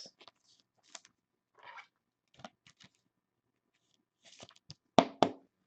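Trading cards being handled on a table: soft rustles and scattered light clicks, with two sharper clicks about five seconds in.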